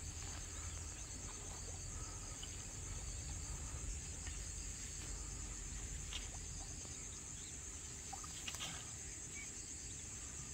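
Insects, crickets or similar, chirping in a steady high-pitched trill over low outdoor rumble, with a few faint clicks.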